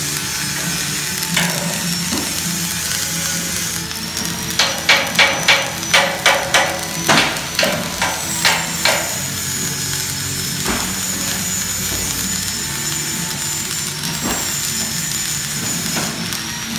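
Stick-welding arc crackling steadily as a rod is run along a joint in steel square tubing. About four seconds in, a run of about a dozen sharp knocks, around three a second, lasting some five seconds.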